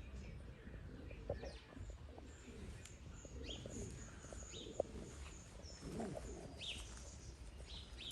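Domestic pigeons of Syrian (Shami) breeds cooing repeatedly, with a few short high chirps from other birds.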